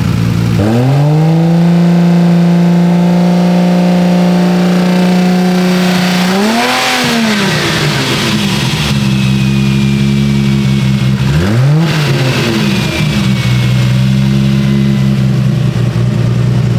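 Honda S2000's four-cylinder engine being revved by hand at the throttle. It rises to a raised speed and hangs there for about five seconds, then gives a quick rev and drops back to idle, with a second short rev about twelve seconds in. The throttle is slow to return because of a loose throttle cable, the owner's diagnosis.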